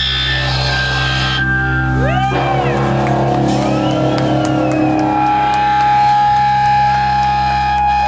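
Heavily distorted electric guitar through a valve amp, a low chord held and droning, with sliding, bending high notes over it and a steady high tone held from about halfway through.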